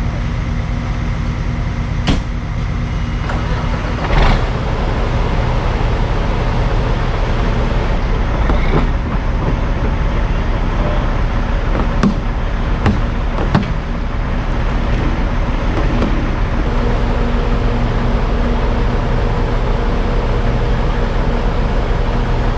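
Dump truck's diesel engine running steadily, with a few sharp clicks and knocks over it.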